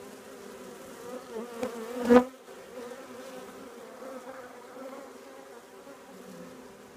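Honeybee colony in an open hive buzzing steadily, a hum pitched around 250 Hz. A single sharp knock sounds about two seconds in.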